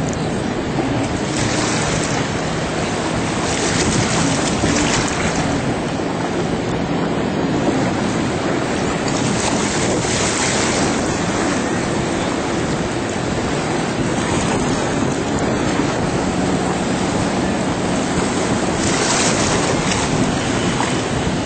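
Jet ski engines droning steadily under a heavy rush of wind on the microphone and churning spray, with the noise swelling now and then as the craft ride across the sea.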